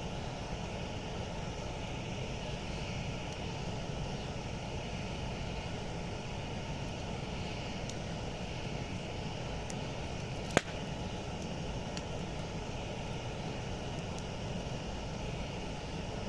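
Campfire burning with a steady low rumble and a few faint crackles, and one sharp pop about ten seconds in.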